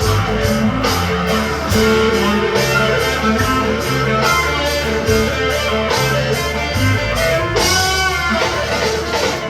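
Squier Stratocaster played through a Big Muff fuzz, wah and reverb into a Fender Champion 20 amp: a distorted lead guitar improvising loudly. A little before the end one note wavers up and down in a wide vibrato.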